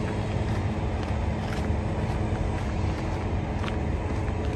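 Semi-truck diesel engine idling: a steady low rumble with a faint hum, and a couple of faint clicks.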